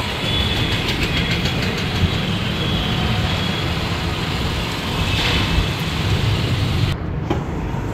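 Two-wheeler engine running at low speed while riding, with steady road and rushing noise; the hiss drops sharply near the end.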